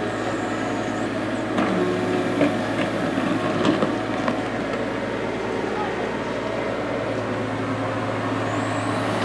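Kubota U30-5 mini excavator's diesel engine running steadily while the machine digs, with the bucket knocking and scraping into the soil several times between about one and a half and four and a half seconds in.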